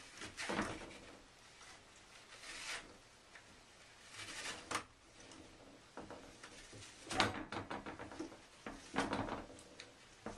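Toilet paper roll spinning on a metal holder as a cat paws at it, the roll rattling on its spindle and the paper rustling as it unrolls, in about five short bursts with pauses between.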